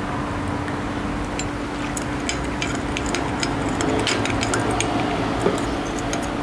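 Metal spoon stirring in a ceramic bowl, clinking lightly and repeatedly against the sides as it dissolves sugar into lime juice and fish sauce. The clinks start about two seconds in, with one sharper knock near the end. A steady low hum runs underneath.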